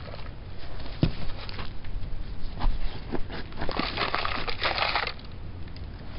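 A hand spreading and pressing crumbly compost into a plastic seedling tray: the soil scrapes and rustles over the tray's cells. There is a sharp knock about a second in and a longer, louder scrape around four seconds in.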